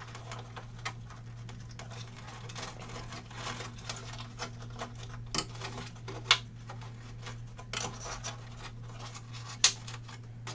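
Small rustling and scraping of a wire bundle being pushed by hand into the cavity of a hood's inner panel, with a few sharp clicks, two of them louder, over a steady low hum.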